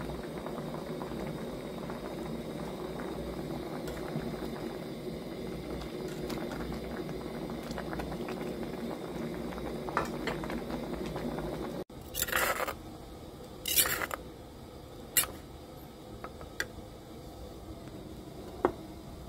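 Kaeng liang, a Thai vegetable soup, boiling hard in a pot: a steady bubbling that lasts about twelve seconds and then stops abruptly. After it come two short noisy rushes and a few sharp knocks as a bowl is handled.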